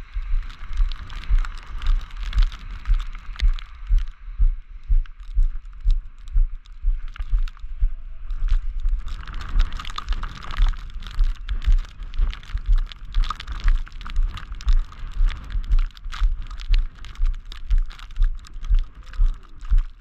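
Footsteps walking through snow, a steady pace of a little under two steps a second, each step a low thud with a crunch, over a steady hiss.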